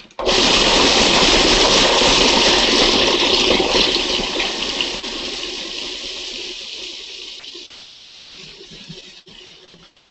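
Food processor running steadily, grinding pecans and dates for a raw pie crust. It is loud at first and grows gradually quieter over the second half.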